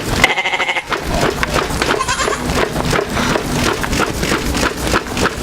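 A goat bleat sound effect: one quavering bleat of about half a second at the start, followed by a busy jumble of clatter and noise.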